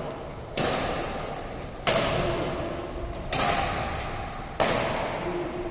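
Badminton racket strikes on a shuttlecock: four sharp hits at an even pace, about 1.3 seconds apart, each echoing in a large hall.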